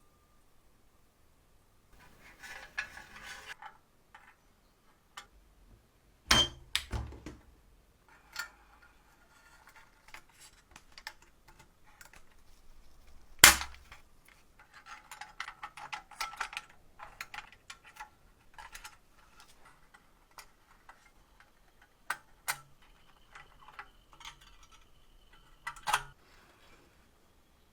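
Hard small parts being handled: scattered clicks, knocks and light rattling, with a single sharp knock about halfway through and others near a quarter and near the end.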